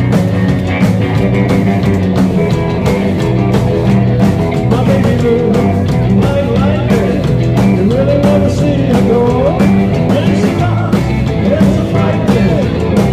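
Live rock'n'roll band playing: electric guitars over a drum kit keeping a steady beat, with a melody line sliding up and down through the middle.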